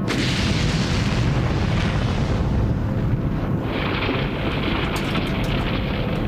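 Atomic bomb blast: a sudden rush of noise as the blast hits, running on as a sustained deep rumble, with a second surge about three and a half seconds in and a few sharp crackles near the end.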